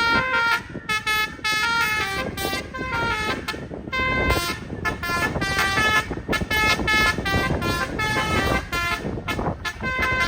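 Telolet basuri multi-tone bus horn playing a quick melody of short notes that jump from pitch to pitch, loud and shrill.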